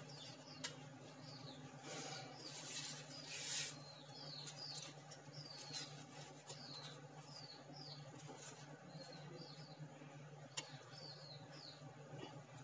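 Faint, short high chirps of a small bird, repeating about every half second over a steady low hum. A brief rustle comes about three seconds in, and there are a couple of light clicks.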